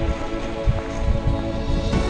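Background music, with a few irregular low thumps underneath.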